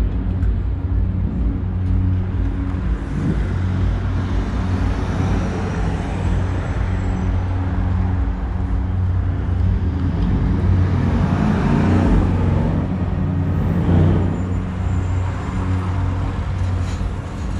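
Street traffic at a stop: a steady low engine hum, with a city bus engine rising and falling in pitch about ten to fourteen seconds in as the bus pulls up alongside.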